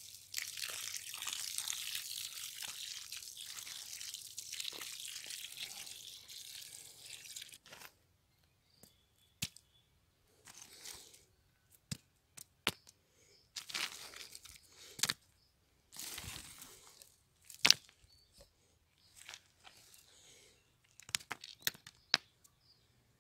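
Water from a hose pouring and splashing onto soil and a stone in a dug earth pit, a steady hiss that stops about seven and a half seconds in. After it come scattered short knocks and crunches of stones and soil being handled, the sharpest about two-thirds of the way through.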